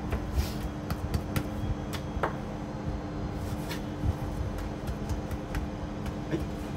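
A knife cutting and trimming raw pork on a wooden cutting board, with scattered light knocks of the blade on the board, over a steady low hum.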